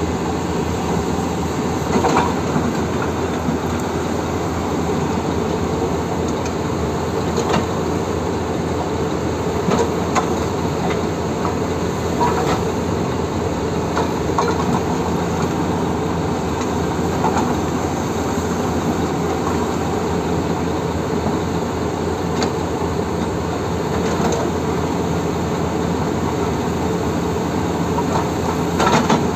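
Excavator-mounted hydraulic breaker hammering rock in a fast, steady rattle over the excavator's running diesel engine, with louder knocks every few seconds.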